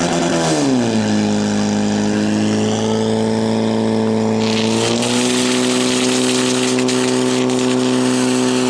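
Portable fire-pump engine running hard under full throttle while pumping water into the attack hoses. Its pitch swings up and down in the first second, holds steady, then steps up once about five seconds in.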